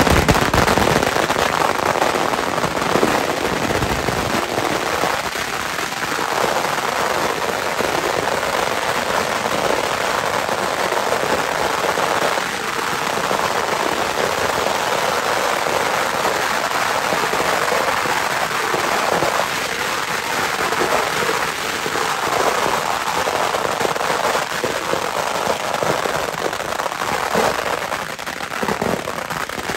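A long string of firecrackers going off in a continuous rapid crackle of pops, holding at a steady level.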